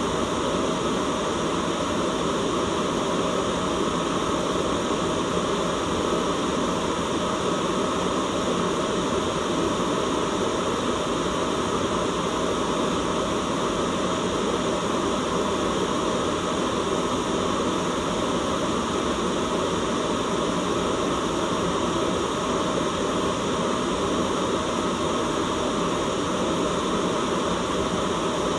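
Steady white noise: an even, unchanging hiss with no breaks, weighted toward the lower-middle range.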